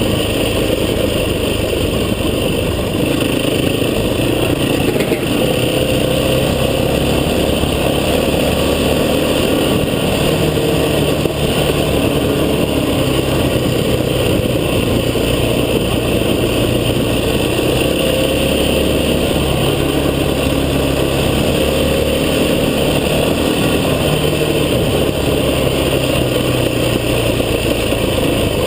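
Vehicle engine running under way on an off-road track, its pitch rising and falling with the throttle over a continuous low rumble.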